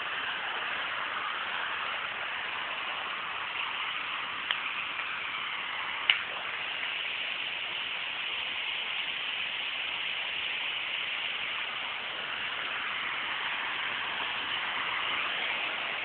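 A steady hiss, even and unbroken, with two faint clicks about four and a half and six seconds in.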